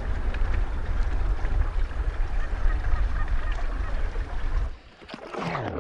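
Loud, rumbling wind buffeting on the microphone, which cuts off suddenly near the end; then a sound that falls steeply in pitch.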